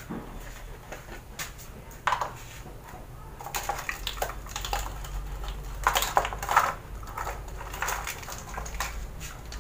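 Irregular clinks and knocks of kitchen items being handled on a counter, loudest about two seconds in and again around six seconds in.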